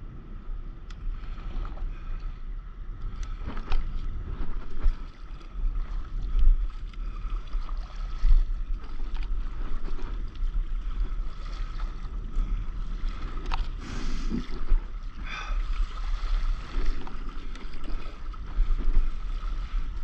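Water sloshing and splashing against a stand-up paddleboard as it rides over sea waves, with a low wind rumble on the microphone. A few louder splashes come about two-thirds of the way through.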